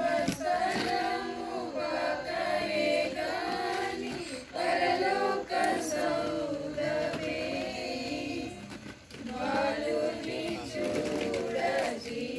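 A group of men and women singing together in phrases, with brief pauses between lines.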